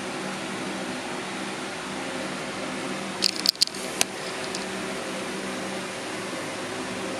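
Steady hum and hiss of room noise, with a quick cluster of about four sharp clicks a little over three seconds in.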